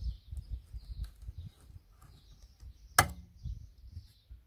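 A plastic push-in trim clip being worked loose by hand from a carpeted boot side panel. It starts with low knocking and rubbing, then comes a single sharp snap about three seconds in as the clip pops out.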